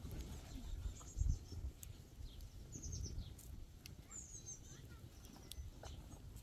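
Small birds chirping in quick runs of high notes that step downward, several times over, above a low, uneven rumble.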